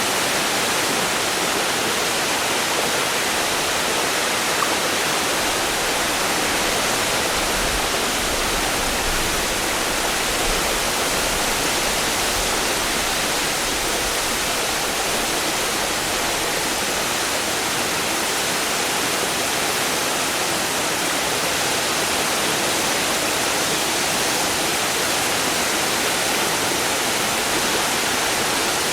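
Largish waterfall, turbulent water falling with a constant hiss and some gurgling and splashing. A faint low rumble comes in for a few seconds near the middle.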